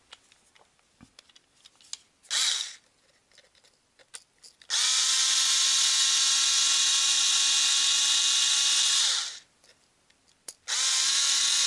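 Small electric screwdriver running steadily as it backs out the screws of a nitro engine's pull-start housing. It starts a few seconds in after some light handling clicks, runs for about four and a half seconds, winds down with a falling pitch, and starts again after a short pause.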